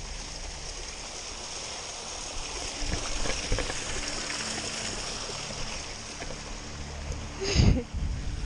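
A small mountain stream rushing steadily over rocks, with a few faint footsteps on stone. About seven and a half seconds in, a loud low thump hits the microphone.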